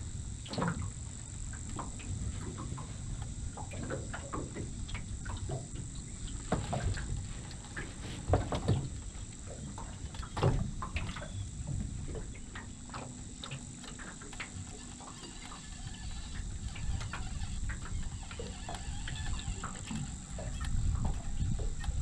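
Wind rumbling on the microphone in an open aluminium dinghy, with scattered knocks and clicks as fishing rod and gear are handled, two of them louder about eight and ten seconds in. A thin steady high hiss runs underneath.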